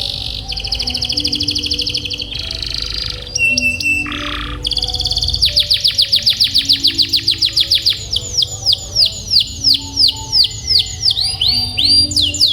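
Domestic canary singing: rapid, fast-repeated trills (rolls), then from about eight seconds a slower series of downward-sweeping notes, about two a second.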